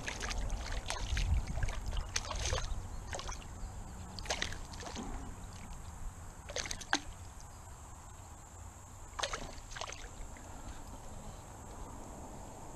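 A small hooked fish splashing at the water's surface, with scattered sharp splashes and sloshing: several in the first three seconds, then single ones about four, seven and nine seconds in.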